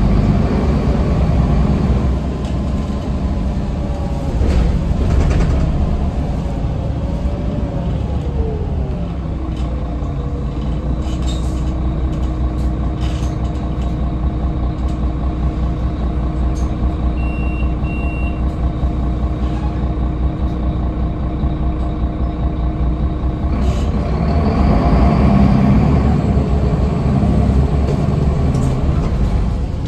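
Solaris Urbino III city bus heard from inside the passenger cabin: engine and drivetrain running with a steady low rumble and a whine. The whine falls in pitch about seven to ten seconds in, holds steady, then rises again a little after twenty seconds in. Two short high beeps sound about halfway through.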